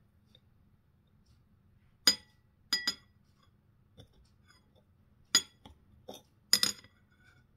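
Metal knife and fork clinking against a ceramic plate while cutting a pan-fried shishito pepper. There is a sharp clink about two seconds in, a quick pair just after it, another a little past five seconds, then a few lighter taps and a tight run of clinks near the end.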